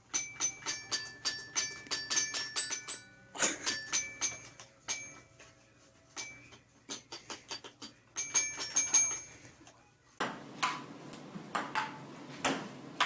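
Bright tinkling chime notes in quick, irregular runs with short pauses, from a musical toy box that a cat is pawing at. About ten seconds in, sharp clicks of a ping-pong ball striking a table tennis table take over.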